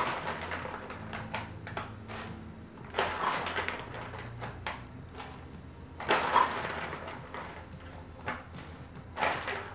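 A food pouch rustling as blueberries are scooped out of it with a measuring cup and tipped into a bowl of batter, in four short bursts about three seconds apart.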